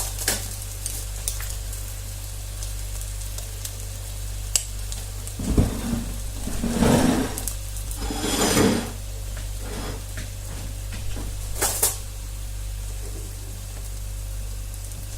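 Slices of egg-dipped bread sizzling as they fry in sunflower oil in a pan, with a few sharp clinks and a louder stretch of scraping and clattering of a utensil against the pan in the middle as the slices are moved.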